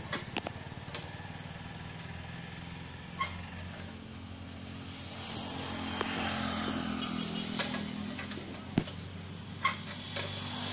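A motorcycle passing along the road, its engine hum swelling and fading around the middle, over a steady high-pitched drone, with a few sharp clicks.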